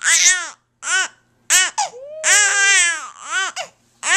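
A three-month-old baby cooing and babbling: about five short, high-pitched vocal sounds that rise and fall in pitch, the longest one near the middle.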